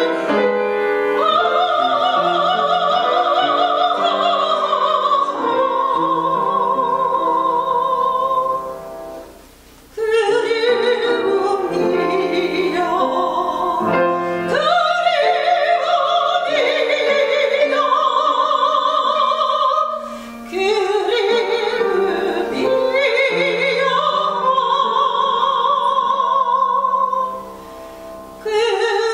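A female classical singer sings a Korean art song with wide vibrato on long held notes, accompanied by piano. The voice breaks off briefly about nine seconds in and again near the end, leaving the piano playing softly.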